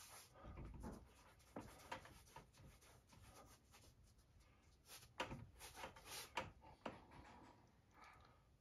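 Faint rubbing of a gloved hand smearing acrylic paint across a stretched canvas, with a few soft knocks in the second half.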